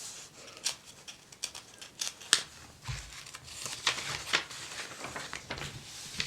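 Paper catalog pages being handled and turned: crisp rustling with a scatter of sharp, crinkly ticks.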